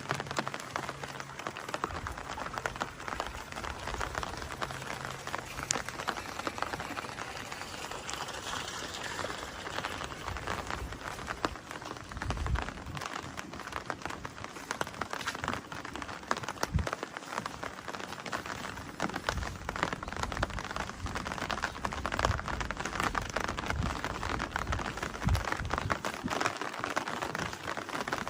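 Steady rain falling, a dense patter of many small drops, with a few short low thuds now and then.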